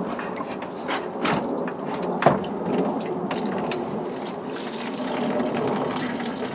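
Water running from a tipped rain barrel's spigot into a watering can, filling it as the barrel is drained for winter. A couple of knocks from handling the barrel sound in the first few seconds.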